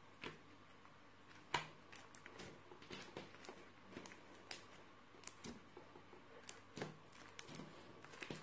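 Bubbly glue-and-dish-soap slime being stretched, folded and squeezed by hand: faint, irregular sticky clicks and pops, one louder pop about one and a half seconds in.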